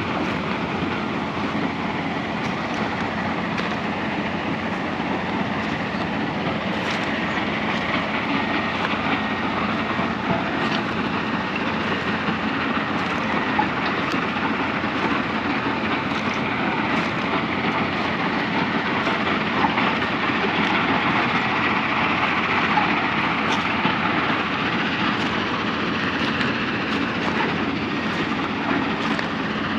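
A steady, even rushing noise with no clear rhythm. It swells slightly past the middle, and a few faint ticks sit within it.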